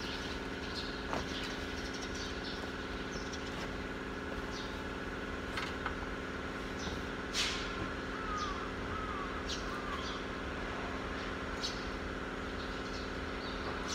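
Steady mechanical hum of a running machine, with a few short bird chirps about seven to ten seconds in.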